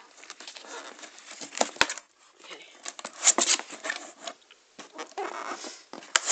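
Cardboard box and packaging being handled and pulled about: irregular rustling and scraping with a few sharp knocks.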